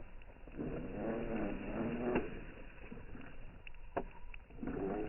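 Radio-controlled off-road car's motor revving in two bursts, its whine rising and falling in pitch, with a few sharp knocks in between.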